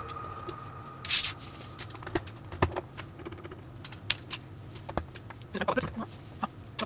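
Plastic LEGO bricks clicking as they are handled and pressed together: scattered single clicks, a short rustle about a second in, and a quick cluster of clicks near the end.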